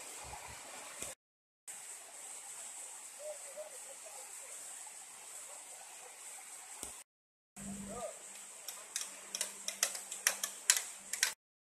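Steady outdoor hiss with faint distant voices. In the last few seconds comes a quick, irregular run of sharp knocks as bamboo poles are handled and struck on a bamboo raft.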